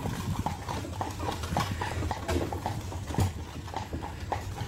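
Carriage horse's hooves clip-clopping in a steady rhythm on a paved street as it pulls an open carriage.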